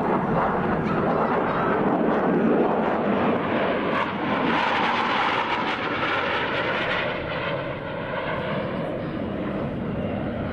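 Jet roar of four F/A-18 Hornets flying over in a tight diamond formation, their turbofan engines running steadily. The pitch of the engine whine drops about halfway through as the formation goes past.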